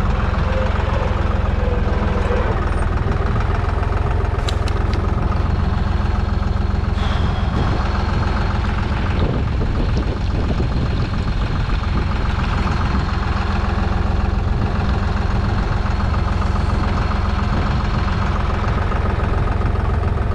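Deutz-Fahr 55F tractor's diesel engine running steadily while the tractor pulls a cultivator between crop rows.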